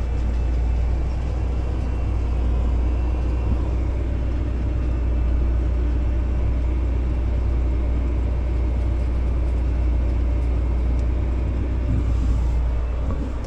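Tractor engine running steadily under load while pulling a tine weeder at about 3 miles an hour, heard from inside the cab as a constant low drone.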